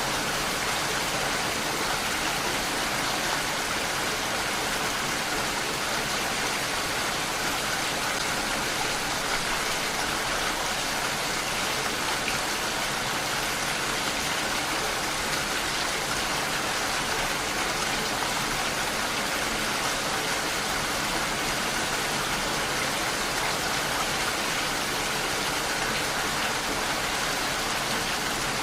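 Steady rain falling, a constant even hiss of drops with no pauses or changes.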